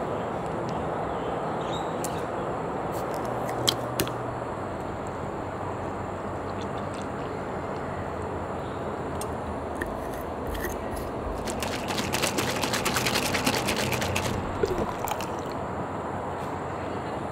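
A plastic drink bottle being handled over a steady background noise: two sharp clicks about four seconds in, then about twelve seconds in a few seconds of fast rattling and sloshing as the bottle of milk and taro milk tea powder is shaken to mix.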